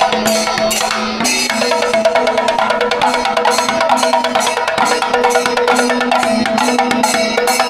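Kerala temple procession ensemble playing: barrel drums beaten in a fast, dense rhythm with clashing hand cymbals, over a wind instrument holding long notes that step from pitch to pitch.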